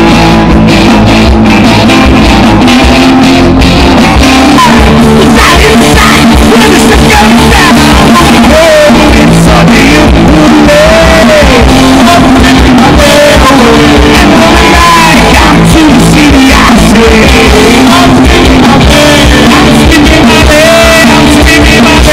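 Live rock band playing loud: electric guitars, bass and drums with a singer.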